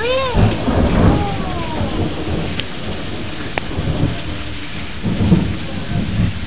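Steady rain hiss with irregular low rumbling thumps. A child's short high voice rises and falls right at the start.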